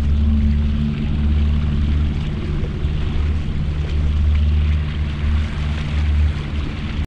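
Bass boat's outboard motor running steadily under way, over a steady rush of water and wind.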